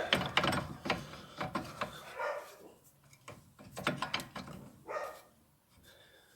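Metal clicks and knocks from handling a loose brake caliper and its parts while pushing the piston back in, irregular and fading out about five seconds in.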